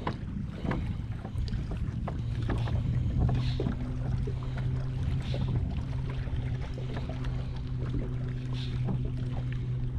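A boat's electric trolling motor runs with a steady low hum, under wind rumbling on the microphone.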